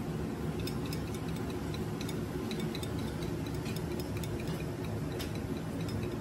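Steady low hum of kitchen machinery, with light, irregular clicks as a small utensil touches a ceramic plate while sauce is drawn out around the rice.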